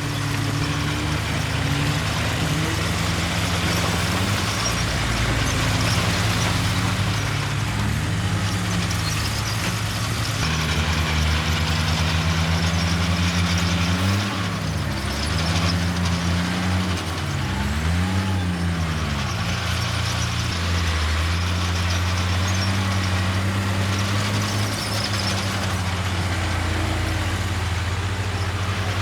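Heavy diesel engine of earthmoving machinery running steadily, revving up and down several times near the middle.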